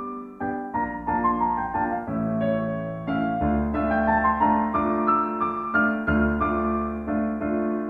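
Background music of piano or electric-piano chords over a deep bass line, with a new chord struck about every half second.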